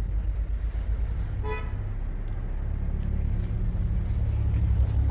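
Steady low engine and road rumble of a moving car, with one short car-horn toot about a second and a half in.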